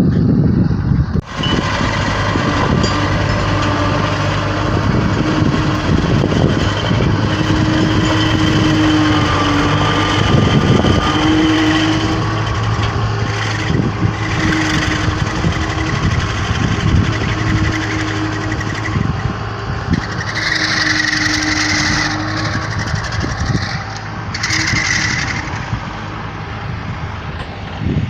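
Tractor engine running steadily under load while a tractor-driven Vogel Noot TST 300 mulcher works, mulching regrowth on cleared ground. A high hissing rush swells twice near the end.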